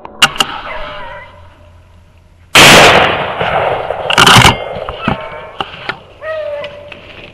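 A 12-gauge shotgun fired about two and a half seconds in, a sudden very loud blast, with a second loud blast about a second and a half later. Beagles bay on a rabbit's trail near the start and again near the end.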